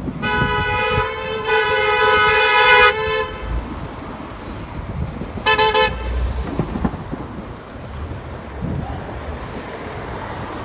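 Car horn honking: one long blast of about three seconds, then a short toot a couple of seconds later, over traffic and wind noise.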